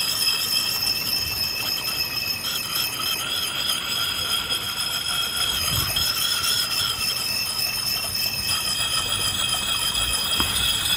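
Sharpening puck worked in small circles on the steel bit of an axe, stone scraping steel with a steady high-pitched squeal as metal comes off the edge.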